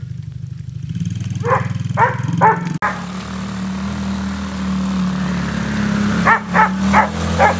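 Small four-wheeler (ATV) engine running steadily, with a dog barking at it in quick runs: three barks about a second and a half in, and four more near the end.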